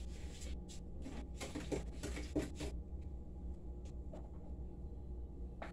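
Rustling and scraping from things being handled at a kitchen counter, mostly in the first half, then a few faint clicks and one sharp click at the end, over a low steady hum.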